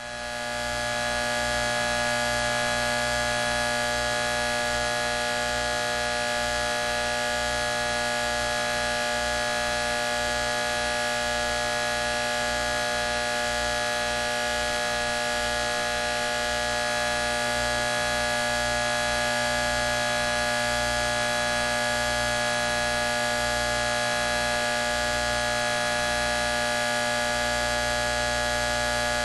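Electrical hum and buzz: a steady drone of many fixed tones over a hiss, with a fluttering low pulse underneath. It fades in over the first second and then holds unchanged.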